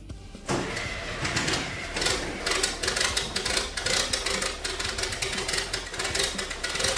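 Caterpillar 3116 turbo diesel of an LMTV military truck starting up about half a second in, then running with a rapid, even diesel clatter.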